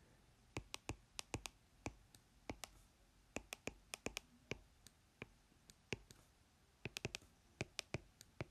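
Pen tip clicking and tapping against the writing surface as an equation is handwritten: a faint, irregular run of sharp clicks, one for each stroke touching down.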